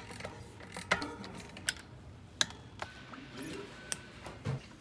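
Bicycle drivetrain parts being fitted by hand, the cassette onto a rear hub and bottom bracket cups into a frame. A few sharp, irregularly spaced clicks and knocks as metal parts meet.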